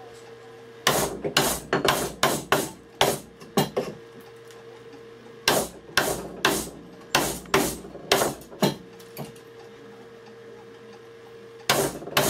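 A narrow mortise chisel being struck with a mallet, chopping a mortise into a round hardwood stool seat. The knocks come in quick runs of several blows, with pauses of a second or two between runs, over a faint steady hum.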